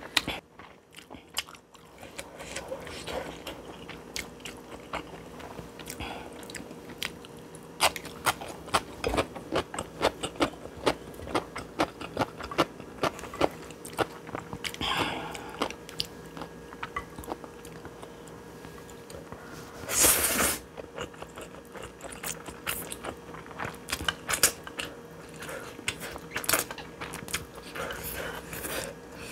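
Close-miked eating of spicy stir-fried instant noodles: chewing with many sharp wet mouth clicks, and one louder, noisy burst about twenty seconds in.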